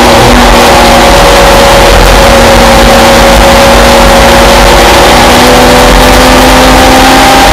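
Simca Rallye 3 race car's four-cylinder engine running hard at a nearly steady high rev, heard from inside the cockpit at a very loud level.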